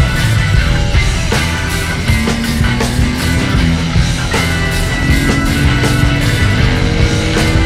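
Loud rock music with a steady driving drum beat and held pitched notes.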